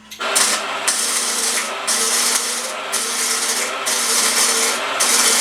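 Electric welding arc crackling steadily, with a low steady hum under it, as a mount is re-welded onto a steel Uzi receiver after the first weld failed to fuse to the receiver.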